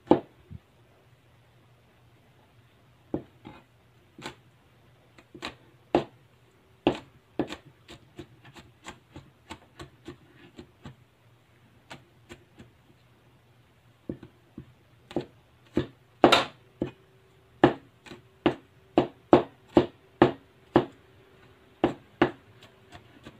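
Cleaver chopping garlic cloves on a plastic cutting board: sharp knocks of the blade on the board, scattered at first, then coming steadily at about two a second in the last third.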